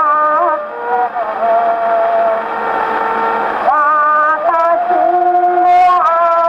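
Taishō-era acoustically recorded 78 rpm shellac record of a shoseibushi song playing on a wind-up Victor Victrola: a melody of held notes with vibrato over steady surface hiss, with no high treble.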